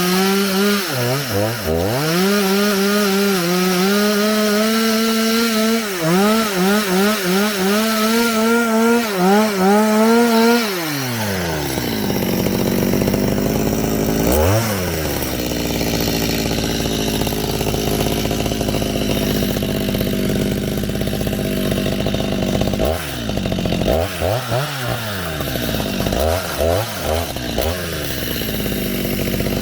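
Chainsaw engine running at high revs, its pitch wavering up and down as if working a cut, then dropping to idle about eleven seconds in. It idles on with a few short throttle blips, several of them close together near the end.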